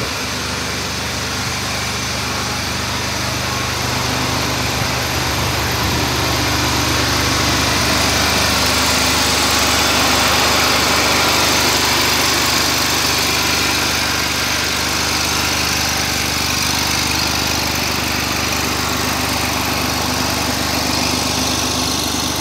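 An eXmark Lazer Z zero-turn mower's engine running at a steady idle, louder for a few seconds in the middle.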